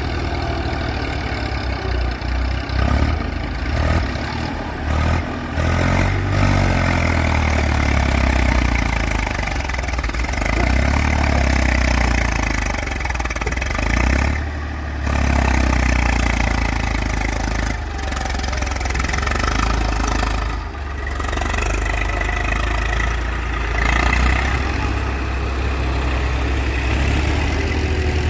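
Case 851EX backhoe loader's diesel engine running, its revs rising and falling repeatedly with a steady low hum underneath.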